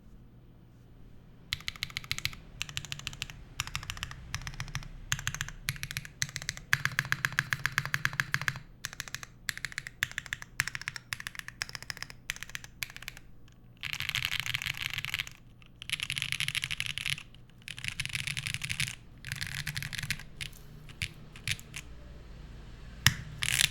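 Typing on a SINGAKBD Unikorn R2.2 custom mechanical keyboard with lubed Geon Black switches, an aluminium plate and GMK keycaps. After a short pause come runs of quick keystrokes, then several stretches of very fast, dense key presses around the middle.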